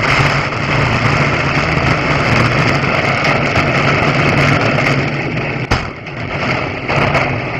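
Dirt-track speedway car's engine running steadily, heard from inside the cockpit. It is mixed with a dense rattle and road noise, and a sharp knock comes about two-thirds of the way through, followed by a brief dip in level.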